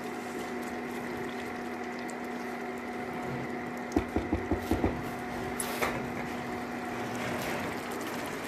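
Induction cooktop humming steadily under a pan of simmering chicken curry. About four seconds in, a quick run of about six taps as the silicone spatula is knocked on the pan, then a brief scrape.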